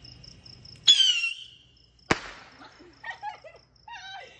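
Crickets chirping in a steady pulsing trill. About a second in comes a loud, short high-pitched squeal that falls in pitch, then a single sharp crack about two seconds in, and a few brief high-pitched sounds near the end.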